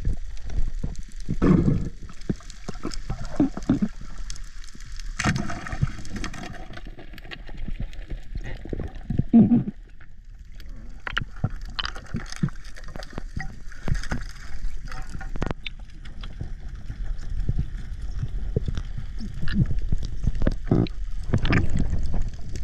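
Water gurgling and sloshing in irregular surges, with scattered short clicks.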